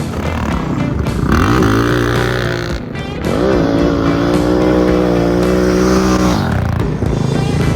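Suzuki DR650's single-cylinder four-stroke engine revving up twice, then holding a steady pitch before dropping off, with a few abrupt breaks in the sound.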